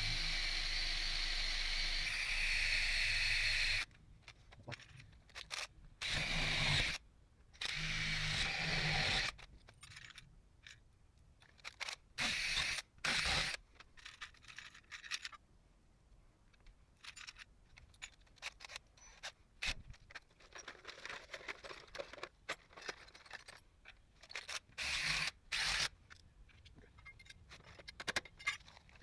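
A power drill runs steadily for about four seconds, then several short bursts of drilling follow, separated by clicks and scrapes of handling metal hardware. The work is on an aluminium door frame.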